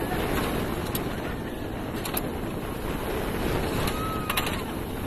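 Wind rushing over the microphone and the running noise of a single-rail roller coaster train speeding along its track, with a few light clicks and a faint short high whine about four seconds in.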